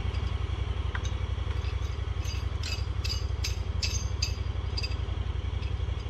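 An engine idling steadily with a fast low throb. From about two seconds in, a run of light metallic clinks comes at about two or three a second.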